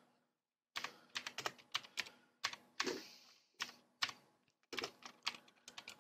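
Typing on a computer keyboard: irregular runs of keystroke clicks, starting about a second in after a brief pause.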